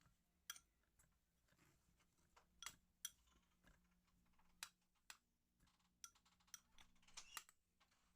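Kitchen utensils clicking and tapping against dishes: a dozen or so faint, sharp taps at uneven intervals.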